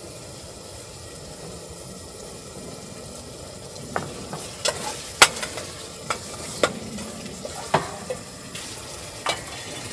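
Onions and jjapaghetti sauce frying in oil in a deep pot on a camp stove, a steady sizzle, with several sharp clinks of a utensil against the pot from about four seconds in as it is stirred.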